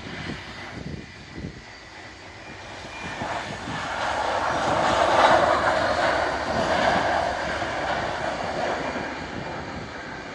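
Jet engines of an Airbus A320-family airliner rolling out on a wet runway after touchdown. The engine noise swells to its loudest about five seconds in, then slowly fades, with wind buffeting the microphone near the start.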